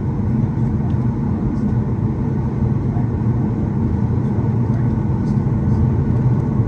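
Steady low rumble inside a Boeing 737 cabin as the airliner taxis, its jet engines running at taxi power.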